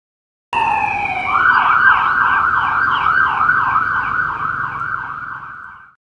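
Police car siren sounding, starting about half a second in with a falling wail, then switching to a fast yelp that sweeps up and down about three times a second. It fades and cuts off just before the end.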